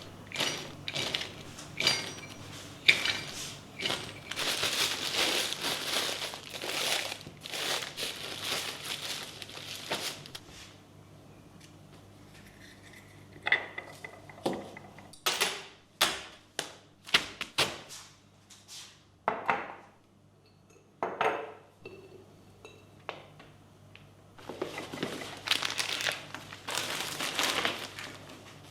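Household handling sounds: rustling and crinkling with sharp clicks and knocks of objects being set down, some with a brief ringing like dishes or glass. Busier for the first ten seconds and again near the end, sparser knocks in between.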